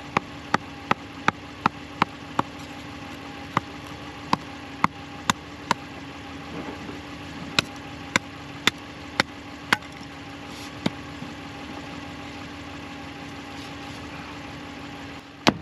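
Axe chopping wood on a chopping block: runs of sharp cracks, about two or three a second, in several bursts. Under them is the steady hum of the stuck pickup truck's engine idling.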